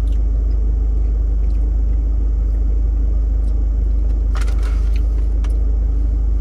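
Steady low rumble of a car's idling engine heard inside the cabin. About four seconds in there is a brief rustle, then a click.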